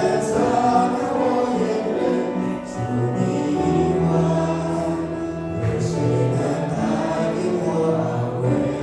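A congregation singing a hymn together in unison, men's and women's voices on slow held notes.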